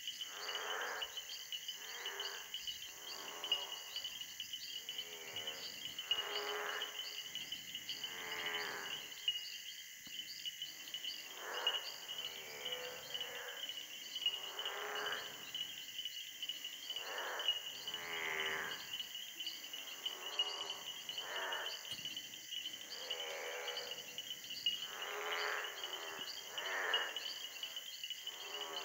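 Chorus of frogs around an East African marsh. Tiny frogs keep up a constant high-pitched tinkling, and other frog species give lower calls every second or two. Each species calls in its own pitch band, so they do not mask each other.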